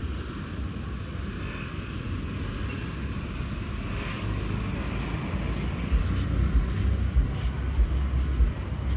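Street ambience: motor traffic running by steadily, with uneven low thumps over it in the second half.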